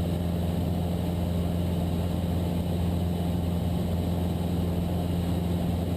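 Cessna 172's piston engine and propeller droning steadily in flight.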